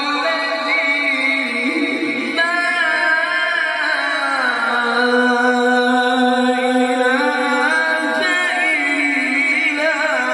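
A qari's solo male voice in melodic Quran recitation into a microphone, holding long ornamented notes. Around the middle the voice settles on a long low note, then leaps up to a high, wavering phrase near the end.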